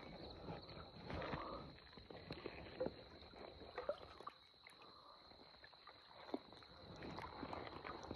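Bare feet wading through shallow muddy water: faint, scattered sloshes and small splashes, over a faint steady high-pitched tone.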